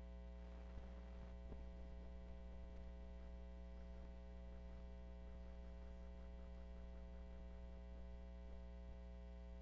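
Steady electrical mains hum, a low buzz with a stack of higher overtones, under faint room tone.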